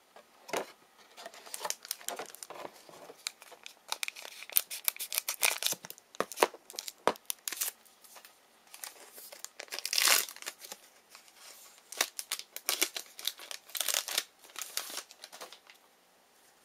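Wrapper of a trading card pack being torn open and crinkled: irregular crackly rips and crumpling rustles, heaviest around the middle, stopping shortly before the end.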